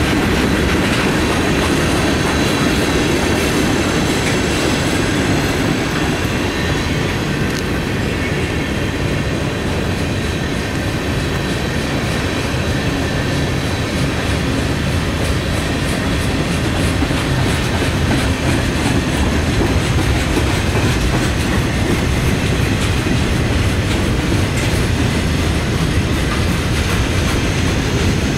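Freight cars of a long mixed freight train rolling past at steady speed: a continuous rumble of steel wheels on rail, with wheels clicking over rail joints.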